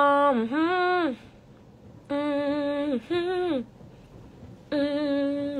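A woman's voice humming or singing a short wordless tune, the same phrase three times: a held note, a quick dip, then a rise and a fall in pitch.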